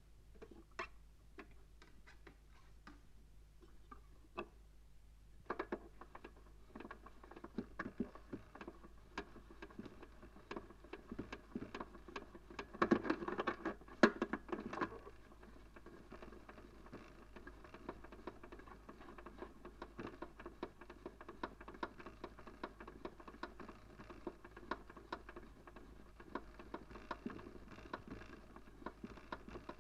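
Crackle and scattered pops of old recorded-sound surface noise over a steady low hum, with a denser, louder patch of crackle about halfway through.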